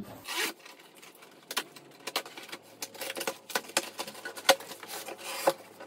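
Cardboard shipping box being opened and rummaged by hand: rustling and crinkling of the cardboard and its packing, with scattered sharp clicks and taps and one sharper knock about four and a half seconds in.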